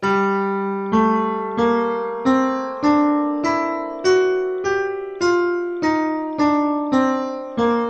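G melodic minor scale played one note at a time on a sampled virtual piano, about one note every 0.6 s. It climbs an octave from G with a raised sixth and seventh (E natural, F sharp), reaches the top G about four seconds in, then steps back down in natural minor with F and E flat.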